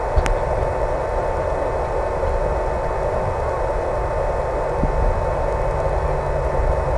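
Steady rushing noise with a constant whine from the HobbyZone Super Cub RC plane in flight, its motor and wind coming through the FPV video link's audio, with one sharp click just after the start.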